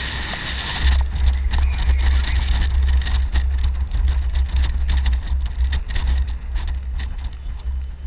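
Armoured Humvee driving, heard from its open roof hatch: a steady low rumble of the moving vehicle and wind on the microphone, louder from about a second in, with frequent small knocks and rattles.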